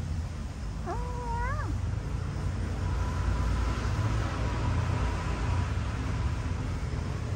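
A cat meows once, about a second in: a single short meow that rises in pitch at the end, over a steady low rumble.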